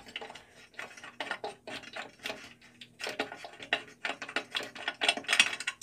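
Craftsman 10-inch direct-drive three-wheel bandsaw running, with a fast, irregular clicking rattle over a faint steady motor hum. The owner takes the noise for a noisy bottom guide bearing.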